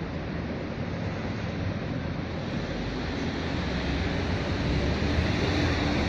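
Steady outdoor rushing noise with no clear single source, slowly growing louder, with a faint low hum coming in near the end.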